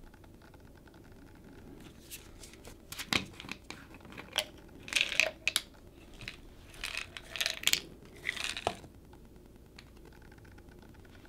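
Plastic pill bottle being opened and handled: a run of short clicks, crinkles and rattles of the cap and bottle over several seconds, then quiet handling near the end.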